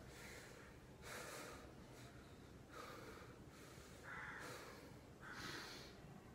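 A man breathing hard, in and out, faint, with a breath about once a second.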